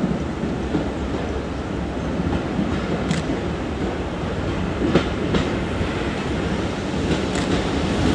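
Class 207 'Thumper' diesel-electric multiple unit running on the line, its diesel engine droning steadily, with scattered wheel clicks over the rails, the sharpest about five seconds in.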